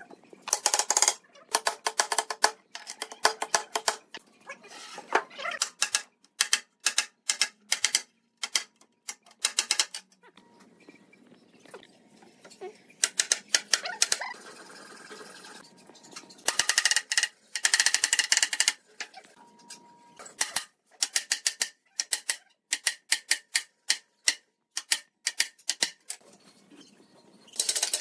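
A wooden mallet tapping pine finger-jointed panels together, in quick runs of sharp knocks with short pauses between them.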